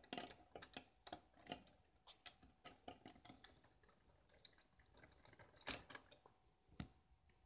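Irregular light clicks and taps of plastic LEGO pieces being handled, with one sharper click near six seconds in.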